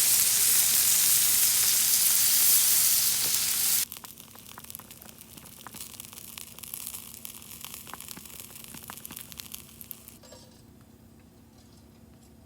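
Yakiniku meat sizzling loudly on a hot grill. After a sudden cut about four seconds in it becomes a quieter sizzle with scattered pops and crackles, which fades to a low background near the end.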